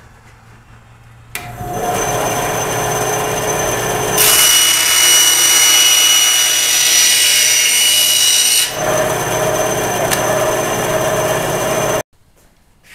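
Ryobi 9-inch benchtop band saw starting up and running with a steady whine. About three seconds later it cuts through a board for around four seconds, louder and rougher, then runs free again until the sound cuts off suddenly near the end.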